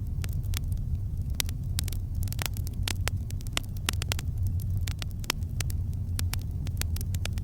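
Wood campfire crackling: irregular sharp pops and snaps, several a second, over a steady low rumble.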